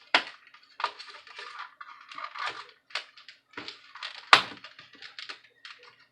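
Plastic laptop parts being pried and worked loose by hand: irregular scraping and clicking, with a sharp snap right at the start and a louder one about four seconds in as plastic hooks give way.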